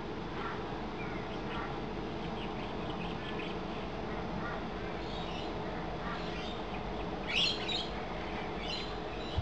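Short bird calls over a steady background hum, with one louder, harsher call about seven and a half seconds in.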